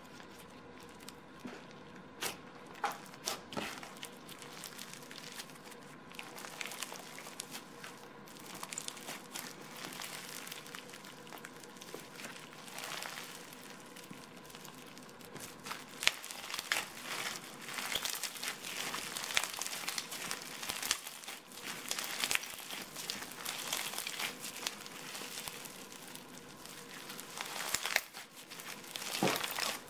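Crunchy foam-bead slime (clear and yellow slime packed with small polystyrene balls) being stretched, pulled apart and squeezed by hand, giving a steady stream of crackles and small pops. The crackling is sparse at first and grows denser and louder from about halfway.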